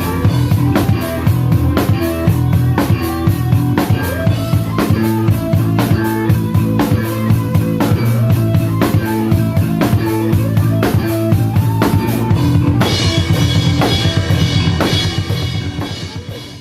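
Drum kit played in a steady groove of kick, snare and rimshot hits over sustained bass and guitar notes; from about two-thirds of the way in the cymbals ring out, and then the music dies away at the very end.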